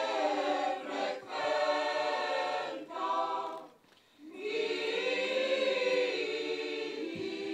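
A choir singing long held notes, with a brief pause about four seconds in.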